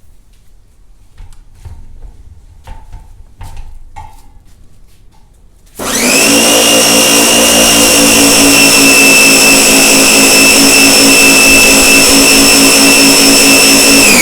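Electric pressure washer starting about six seconds in and running with a loud, steady whine and hiss as water is sprayed through the gun to bleed air pockets out of the line, the pitch dropping as it shuts off at the very end. Before it starts, only a few light clicks and knocks.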